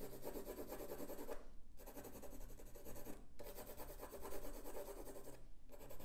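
Graphite pencil hatching on textured watercolour paper: quick, dense scratching strokes in three runs, with brief pauses about a second and a half in, about three seconds in, and near the end.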